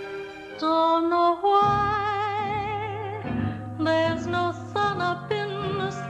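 A woman singing a slow ballad, holding notes with wide vibrato, over instrumental accompaniment.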